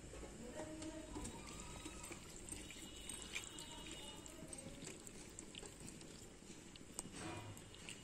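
Faint wet sloshing of raw chicken pieces and water being stirred with a spoon in a pressure cooker, with a small click about seven seconds in.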